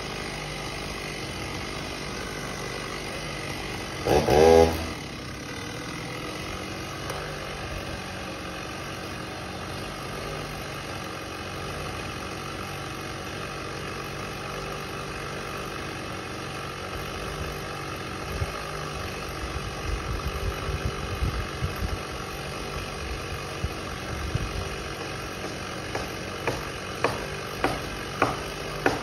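An engine idling steadily, with one brief loud burst about four seconds in. Near the end comes a run of sharp knocks, about one a second.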